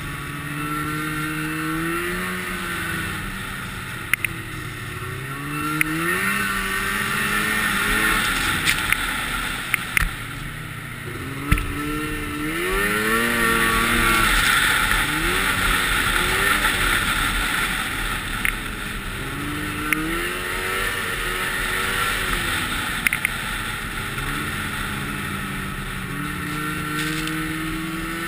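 Snowmobile engine heard on board while riding, its pitch repeatedly climbing and dropping as the throttle is opened and eased off, over a steady rushing noise, with a few short sharp clicks.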